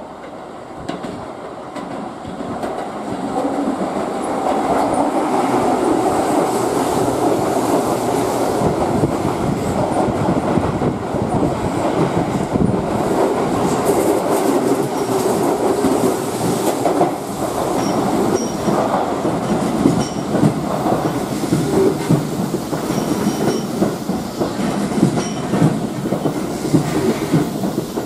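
Keihan 2200 series out-of-service train passing through the station without stopping, its wheels clattering rhythmically over the rail joints. The noise builds over the first few seconds, stays loud, and cuts off suddenly near the end.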